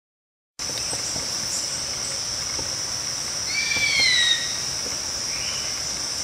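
A steady high-pitched drone of insects, like crickets. About three and a half seconds in, a single long, falling scream of a bird of prey cuts through, with a fainter short call a little later.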